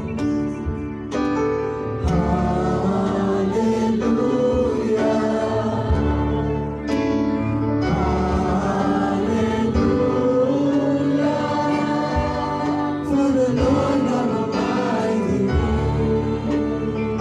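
Live church praise-and-worship music: a worship song sung by several voices over a band, with long held notes.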